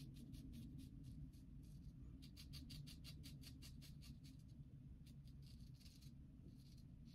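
Kampfe Bros "SCS" Lather Catcher single-edge safety razor with a GEM blade scraping through lathered neck stubble: a faint, crisp crackle of hairs being cut, in short runs of rapid clicks with each stroke, busiest a couple of seconds in.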